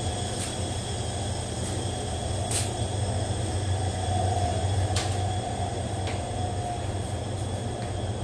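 Steady low hum with a few sharp clicks scattered through it, about half a second in, around two and a half seconds in, at five seconds and near six seconds.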